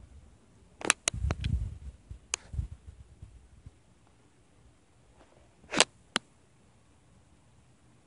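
Sharp clicks and taps: a cluster about a second in with a short low rumble on the microphone, one near two and a half seconds, and a louder pair near six seconds, between stretches of quiet.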